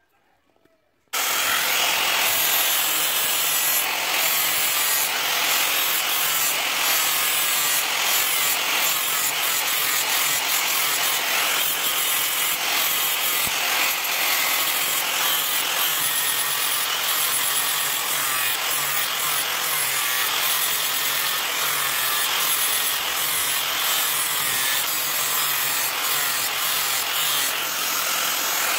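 Electric angle grinder with an abrasive disc grinding a steel sickle blade, a steady harsh grinding noise that starts abruptly about a second in.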